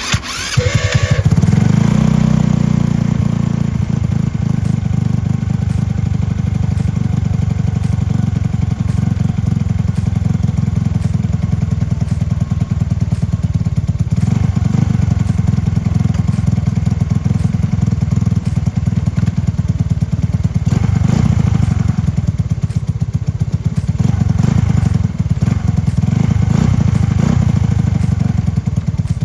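A 150cc moped's single-cylinder engine catches right at the start and then runs steadily with a fast, even beat, swelling slightly a few times along the way.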